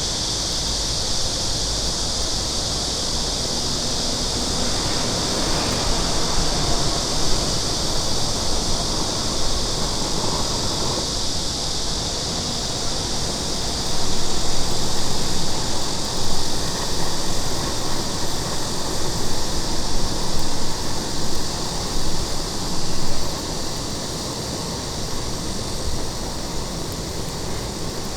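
Butane gas torch burning steadily with a continuous hiss as it is held on kindling to light firewood; the sound swells unevenly for several seconds around the middle.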